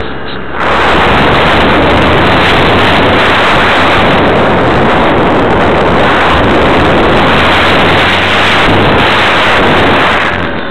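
Loud rushing of air and motor noise picked up by a camera riding on a radio-controlled model airplane in flight. It comes in suddenly about half a second in and eases off just before the end.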